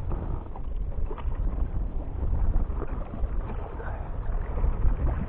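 Wind buffeting the microphone in gusts, with small waves lapping against a plastic kayak hull.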